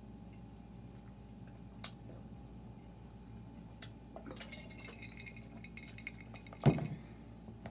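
Quiet eating and drinking sounds with light clicks and clinks, then one heavy thud near the end as a glass jar of drink is set down on the table.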